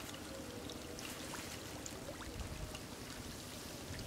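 Faint sloshing and trickling of muddy pond water stirred by people wading and feeling through it for fish by hand.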